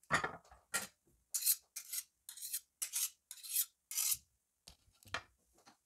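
Kinetic sand being cut and scraped with a blade: about ten short gritty rasping strokes, roughly two a second, a few starting with a soft thud.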